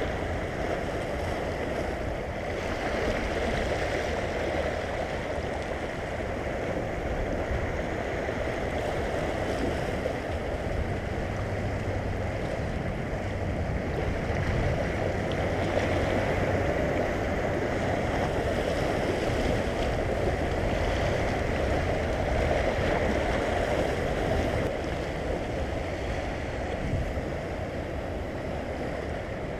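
Seawater washing and lapping over a shallow rocky reef, a steady rushing wash of small waves.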